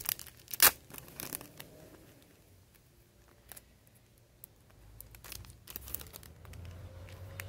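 Clear plastic wrap being torn open and peeled off a photo card pack: a sharp rip less than a second in, a smaller one just after, then crinkling of the loose plastic toward the end.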